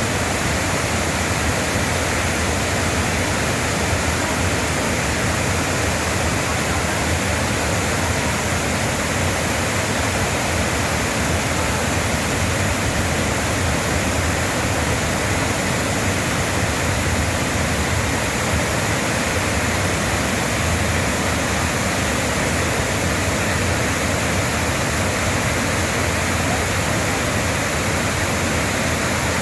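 Waterfall on a mountain valley stream: a steady, unbroken rush of falling water.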